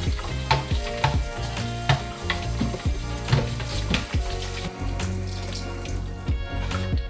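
Background music with a regular beat of sharp percussive strokes, over a steady sizzling hiss that fades out near the end.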